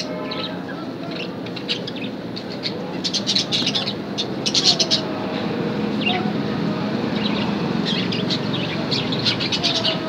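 Budgerigars chattering in bursts of rapid high chirps, over a steady low background rumble.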